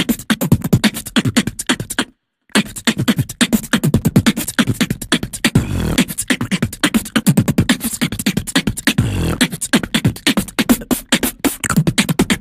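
A person beatboxing an iPhone ringtone: quick mouth-made drum hits with pitched vocal tones carrying the tune. There is a short break about two seconds in.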